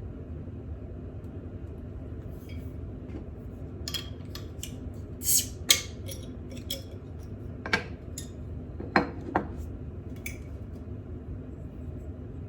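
A scattering of clinks and taps of dishes and utensils, the loudest about five to six seconds in, over the steady hum of a kitchen range hood fan.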